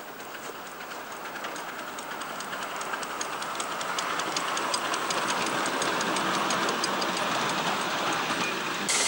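A ride-on live steam model train's passenger cars roll past, their wheels clicking quickly and evenly over the rail joints, the rumble growing louder as the loaded cars go by.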